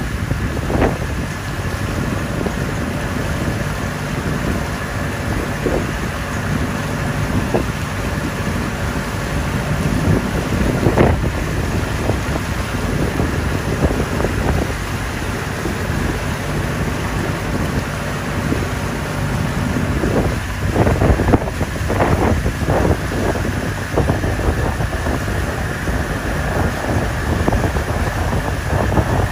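Motorized outrigger boat (bangka) running steadily under way, its engine a constant drone under wind buffeting the microphone. A few brief louder thumps break through, most of them between about twenty and twenty-two seconds in.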